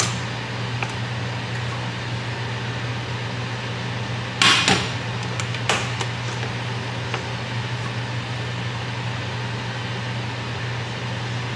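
A steady low appliance hum runs throughout. A plastic bag of shrimp crinkles sharply for about half a second about four and a half seconds in, and a single click follows about a second later.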